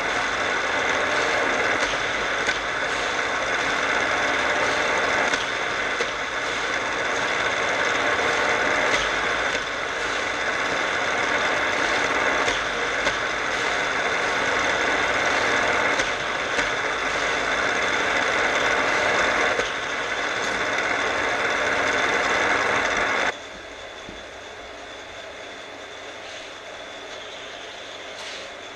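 Battery-powered Hot Wheels track boosters whirring steadily, with small dips in level. About 23 seconds in the sound drops suddenly to a much quieter hum.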